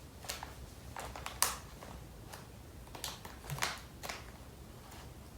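Hands handling a small product package: scattered light clicks and rustles, the sharpest about a second and a half in.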